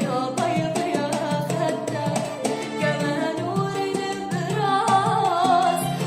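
Arabic song: a woman singing a wavering, ornamented melody over drums and backing instruments.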